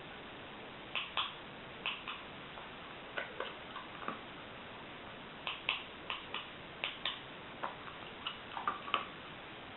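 Dog sniffling: a string of short, sharp clicking sniffs, often two in quick succession, at irregular intervals with a short pause near the middle.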